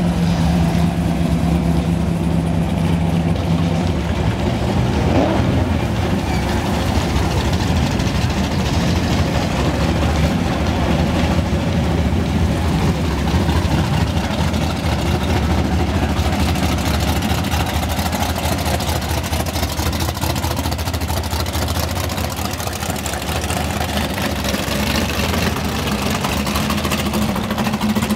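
Hot rods and custom cars driving slowly past one after another, their engines running at low revs.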